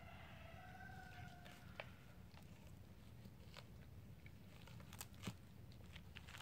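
Doberman crunching and gnawing a raw deer spine, with sharp cracks of bone at irregular intervals; the loudest crack comes about five seconds in.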